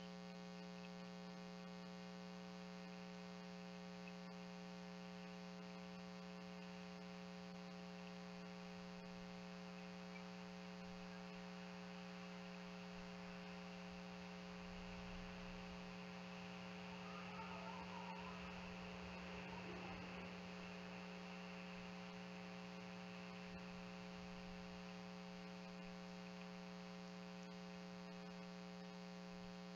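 Steady electrical hum with a buzzy series of evenly spaced overtones. A slight swell of faint noise comes about halfway through.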